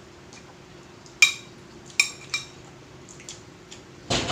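Cutlery clinking against plates while eating: three sharp clinks with a short ring, then a louder clatter near the end.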